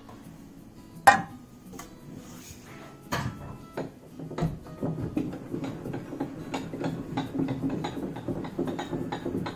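A sharp metallic clack about a second in, then a steady run of small metal clicks and rattles from a table saw's blade-tilt mechanism being adjusted, with the magnetic angle gauge riding on the still blade.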